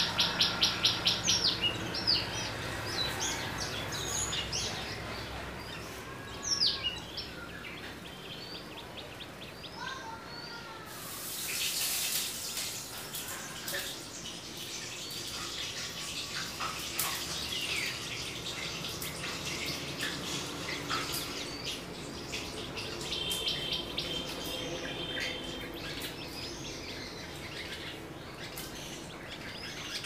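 Several garden birds chirping and calling: a fast clicking trill at the start, then scattered short whistles and chirps. A brief rush of noise comes about 11 seconds in.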